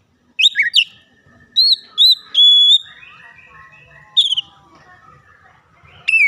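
Oriental magpie-robin singing loud, clear whistled phrases: quick slurred notes and a held whistle in short bursts separated by pauses, with softer, lower warbling in between.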